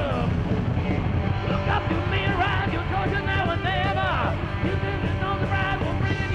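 Heavy metal band music playing steadily, with a lead line that bends and wavers in pitch over a dense, continuous backing.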